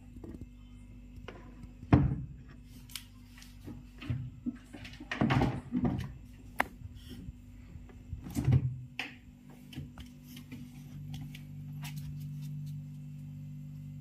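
Refrigerator door being handled and pulled open: a few thumps and knocks, the sharpest about two seconds in, then a steady low hum from about ten seconds in.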